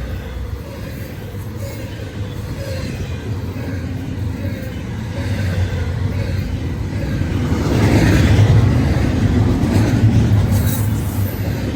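Intermodal freight train rolling past, a steady rumble of wheels on rail that swells louder about eight seconds in.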